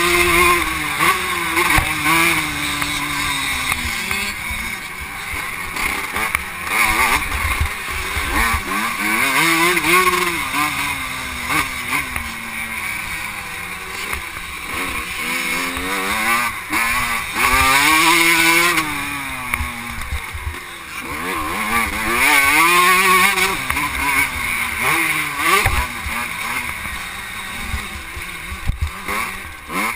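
Vintage 125cc two-stroke motocross bike engine revving hard and dropping off again and again through the gears and corners, heard close up from a helmet-mounted camera with rushing wind noise.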